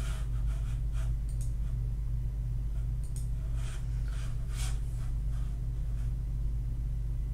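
Steady low electrical hum of the recording, with a few faint short soft noises scattered through it.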